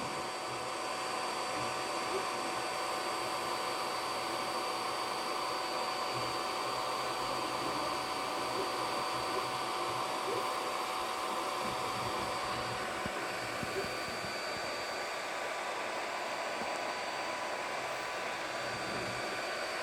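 3D printer running: a steady whir of its fans with a few constant whining tones over it.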